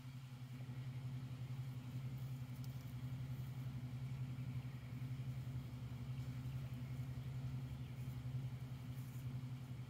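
A machine running steadily with a low hum.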